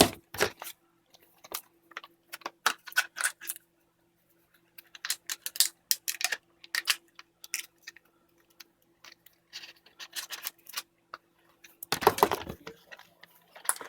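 Cardboard packaging being handled and rummaged through by hand: scattered clicks, scrapes and rustles with short pauses, and a denser stretch of scraping near the end. A faint steady hum runs underneath.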